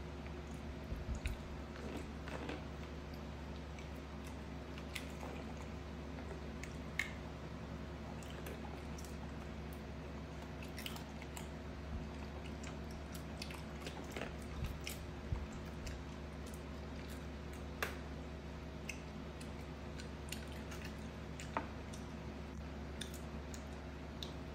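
Young macaque nibbling and chewing small pieces of food, with scattered crisp clicks and crunches from its bites over a steady low hum.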